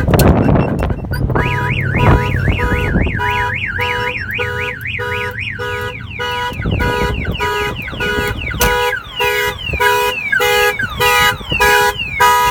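Viper 5305V aftermarket car alarm siren going off, set off by a door opened with the key while the system is armed. After a sharp click at the start, the siren begins about a second in: first a fast up-and-down warble, then a run of pulsing beeps with falling chirps.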